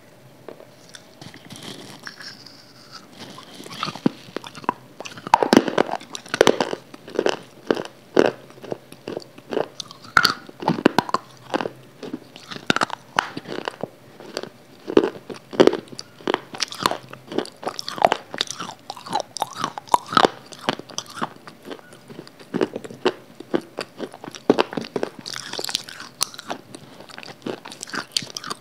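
Close-miked eating sounds: crisp crunching bites and chewing, starting faint and becoming a rapid run of loud, sharp crunches from about four seconds in.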